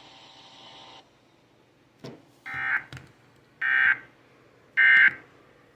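Three short, buzzy Emergency Alert System data bursts about a second apart, each louder than the one before.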